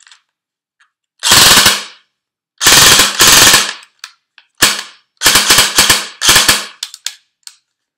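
G&G G36C airsoft electric rifle firing on an 11.1 V LiPo battery: a burst of rapid mechanical gearbox cycling, a longer burst of about a second, then several shorter bursts and a few single clicks. The battery is too powerful for this replica and makes it double-cycle.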